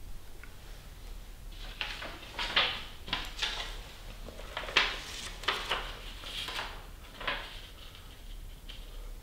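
Crinkling and rustling of a disposable surgical mask with a clear plastic anti-fog splash shield as it is handled and opened out: a string of short crinkles a second or less apart, with a quieter stretch near the end.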